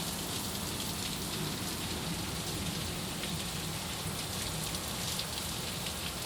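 Heavy monsoon rain pouring steadily, with a fine ticking of drops striking a hard surface.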